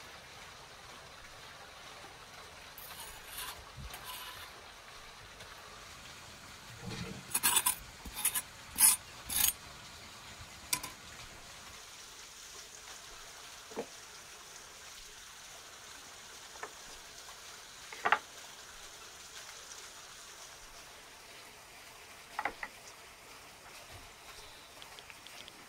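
Kitchen knife scraping and pressing ground spice on a stone slab. About seven seconds in comes a quick run of sharp clinks and knocks, then a few single clinks spaced out as the spice bowls and a spoon are handled.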